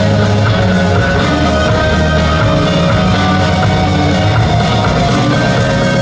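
Loud rock music with electric guitar and drum kit, steady throughout.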